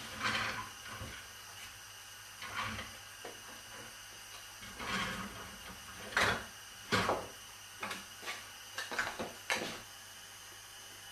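Irregular short knocks and scrapes over a steady hiss, coming more often in the second half.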